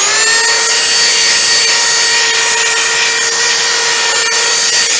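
Electric power sander on wooden panels, settling to full speed right at the start and then running steadily: a loud, high whine over a hiss.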